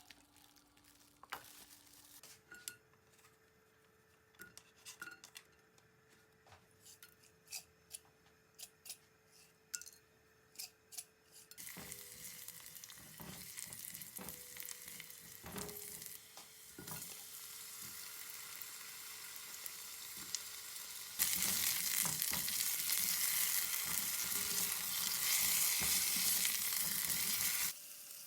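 Scattered light clicks and taps of kitchen utensils over a faint steady hum, then food starts sizzling in a frying pan about twelve seconds in, with stirring. The sizzle grows, jumps sharply louder about twenty-one seconds in, and cuts off just before the end.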